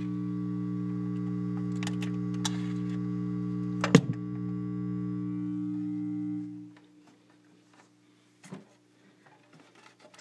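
Steady electrical hum from the 1953 RCA 3-HES-5 record player's tube amplifier through its speaker, with a few clicks and one loud click about four seconds in. The hum dies away about six and a half seconds in, as when the player is switched off, leaving a few faint handling knocks.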